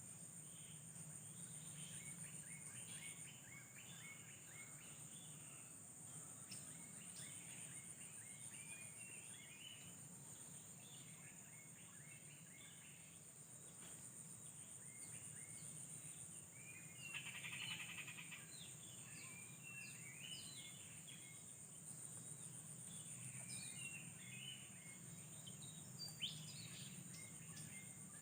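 Outdoor nature ambience: a steady, high-pitched insect drone, with many short bird chirps scattered over it, busiest about two-thirds of the way through.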